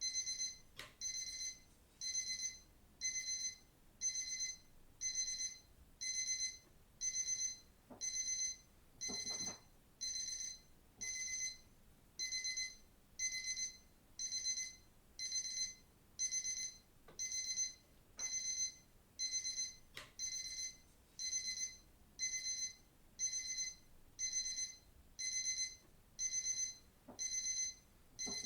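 Digital watch alarm beeping: high-pitched electronic beep bursts of about half a second, repeating roughly once a second.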